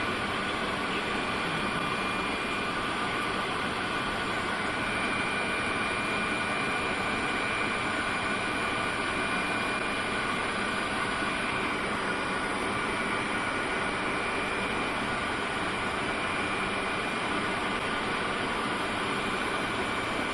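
Steady flight-deck noise of a Fokker 100 in flight: an even rush of air mixed with the hum of its Rolls-Royce Tay turbofans and a few constant high whine tones, unchanging throughout.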